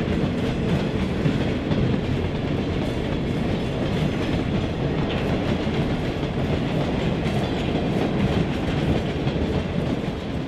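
A string of empty steel iron-ore hopper cars (ore jennies) rolling past close by. The wheels make a steady clickety-clack over the rail joints, with many small metallic clanks over a low rolling rumble.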